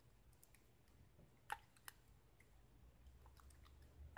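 Faint small metallic clicks from a metal shim being worked into a Euro cylinder lock between plug and housing, with two sharper clicks about a second and a half in; the fit is very tight.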